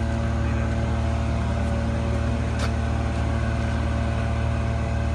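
A large engine running steadily, an even low drone that does not change in pitch or loudness.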